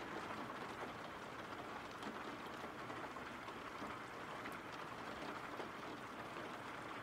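Steady, soft rain: an even hiss of falling rain with faint scattered drop ticks.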